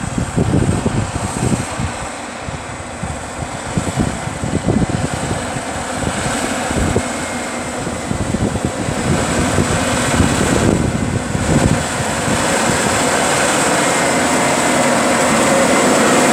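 Case Magnum 380 tractor's diesel engine running under ploughing load, a steady mechanical drone that grows louder over the second half as the tractor comes closer.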